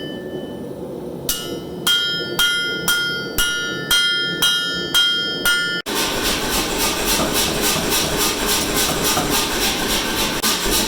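Blacksmith's hammer blows on an anvil, about two a second, each strike ringing out. About halfway through, the sound cuts abruptly to a steady rushing noise with a fast, even pulse.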